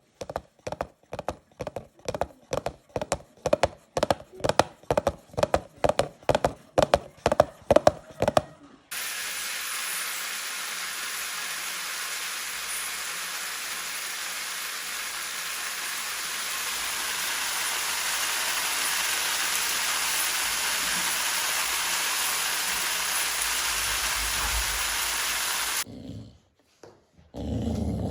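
A string of sound effects. First, horse hooves clip-clop in a steady rhythm, about three strokes a second, for roughly nine seconds. An abrupt cut leads to a steady hiss of noise lasting about seventeen seconds, and near the end a dog starts growling.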